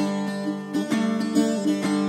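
Background music of plucked string notes over held tones.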